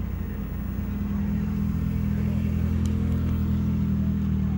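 Nissan 180SX engine running at low revs as the car rolls slowly past: a steady, deep drone that grows a little louder about a second in.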